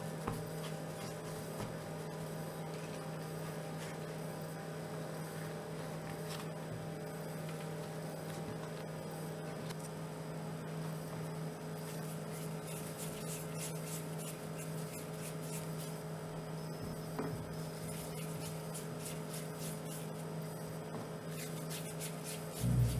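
Steady electrical hum. From about halfway there are faint soft rubbing and ticking sounds as cookie dough is rolled into balls between the palms, and a low thump comes just before the end.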